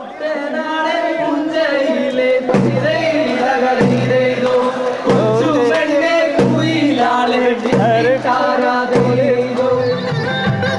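A song: voices singing wavering melodic lines over a steady drum beat that strikes about every second and a quarter.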